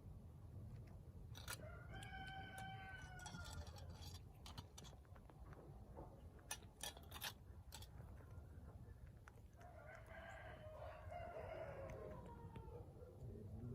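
Two drawn-out pitched animal calls, the first short and arched, the second longer and falling in pitch, with a few sharp clicks between them.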